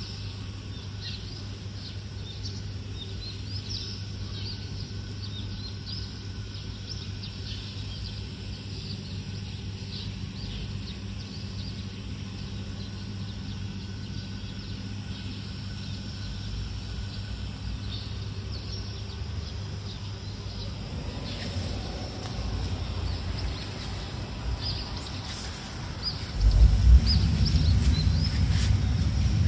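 Small birds chirping and twittering in short scattered calls at dawn over a steady low hum. About 26 seconds in, a much louder low rumble sets in.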